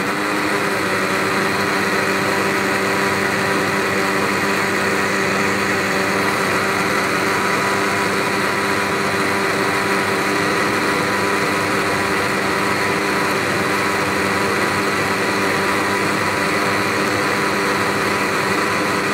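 Electric blender running steadily, blending a thick mix of milk, condensed milk and nut powders; a loud, even motor hum and whine with the liquid churning in the jar.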